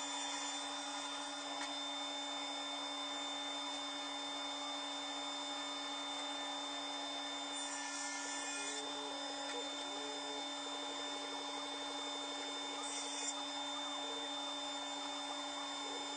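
Table saw running with a steady motor hum as the second raised-panel cut is made. A brief hissy rise shows about halfway through and again near the end.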